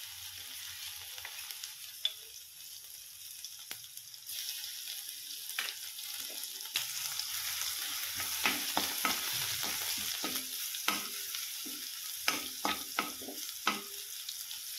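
Crushed garlic and cumin seeds sizzling in hot oil in a kadhai, the hiss growing louder about four seconds in. From about six seconds in a metal spoon stirs the garlic, scraping and clicking against the pan.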